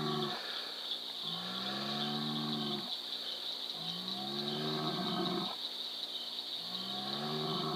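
A cow mooing close by: three long, low moos, each about a second and a half with a slight arch in pitch, over a steady high hiss.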